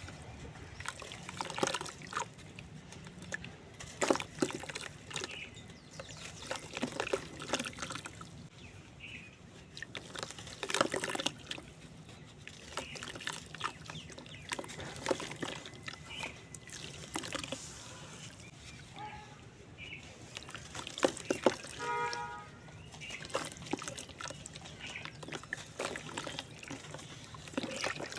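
Water-soaked cement-sand lumps crumbling in a clay matki pot: wet, irregular crackling and crunching with trickling, and now and then a louder crunch.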